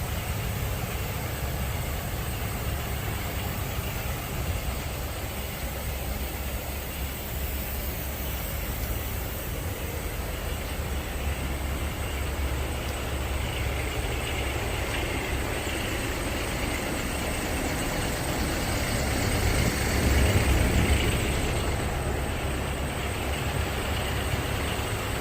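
Steady rushing noise with a strong low rumble, swelling in loudness for a couple of seconds near the end.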